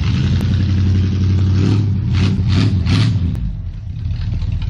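A 1959 Dodge Coronet's engine idling steadily, its exhaust note even.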